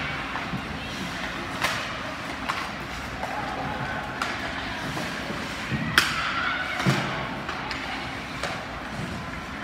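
Several sharp thuds and knocks over a steady background din, the loudest about six seconds in.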